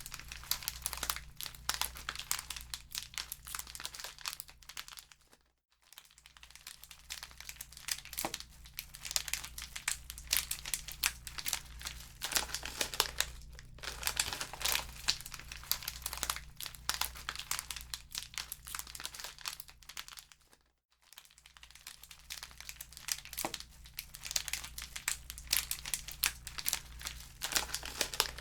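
Wood fire crackling in a fireplace: a steady stream of irregular pops and snaps over a soft hiss. It dies away to near silence twice, briefly, and comes back.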